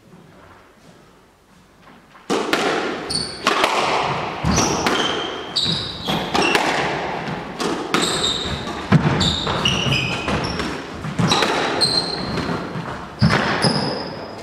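Squash rally: after a quiet start, the ball is served about two seconds in and then cracks off rackets and walls every half-second to a second, each hit echoing in the court. Rubber-soled shoes squeak briefly and sharply on the hardwood floor between the hits.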